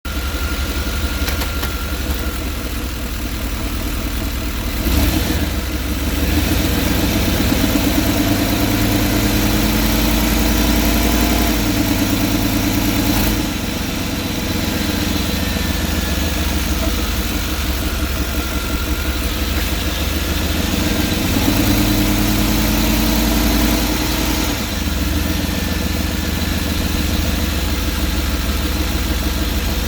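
Chevrolet van's 5.7-litre TBI V8 running with its engine cover off. It picks up speed and settles back twice. An exhaust leak somewhere in the engine compartment makes it run louder than normal.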